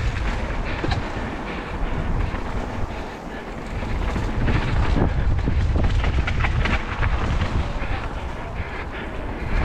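A mountain bike rolling fast down dirt singletrack, with wind rumbling on the action camera's microphone, tyre noise and the bike rattling and clicking over bumps. A brief lull comes about three seconds in, and the clatter is busiest around the middle.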